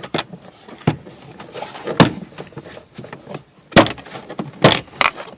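Plastic interior trim of a Mazda 5 being pried loose by hand: a series of sharp clicks and knocks as the trim clips pop and the panel is worked free, with scraping between them. The loudest knocks come about two seconds in and again near four seconds.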